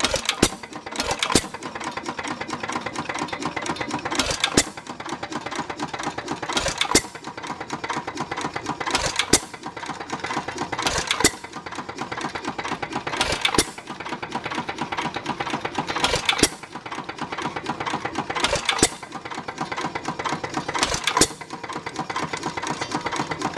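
A 1915 Root & VanDervoort 1.75 hp single-cylinder hit-and-miss engine running unloaded. It fires with a sharp bang every two to three seconds, about ten times here. Between firings it coasts on its flywheels with a steady fast mechanical clatter, while the governor holds off firing until the speed drops.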